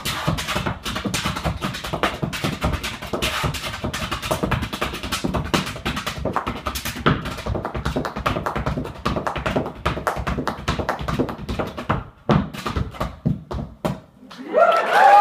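Percussive flat-footing: shoes striking a portable dance board in rapid, dense taps and stamps, thinning to a few single strikes before stopping. Audience applause and cheering rise near the end.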